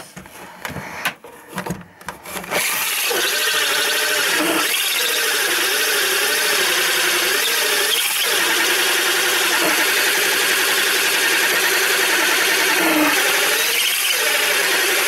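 Small 10.8-volt cordless drill driving a hole saw: a few knocks, then from about two and a half seconds in the drill runs steadily under load, its motor whine wavering and dipping several times as the saw bites. The saw has not yet broken through, and the owner finds this drill too weak for the job.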